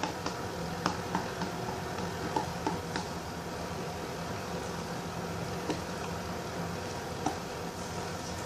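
Glue-and-detergent slime being stirred in a cup: faint, scattered clicks and soft squishing over a steady low hum.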